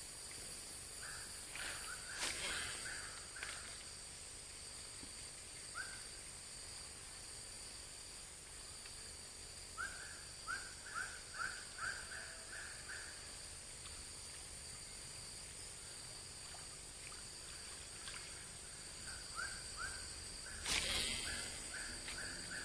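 Outdoor ambience: insects drone steadily and high, while a bird calls in three runs of short rising chirps, about two a second. Two brief noisy bursts stand out, one about two seconds in and a louder one near the end.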